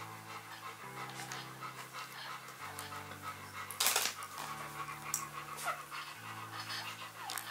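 Quick wet sucking clicks and breathing of a newborn Rottweiler puppy suckling from a baby bottle, with one brief louder burst about four seconds in. Soft background music with slow sustained chords underneath.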